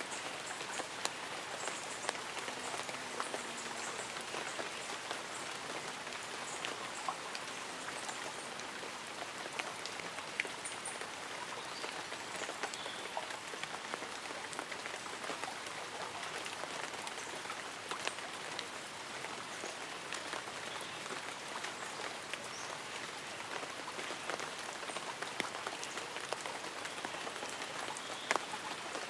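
Light rain falling steadily, individual drops ticking on leaves and an umbrella.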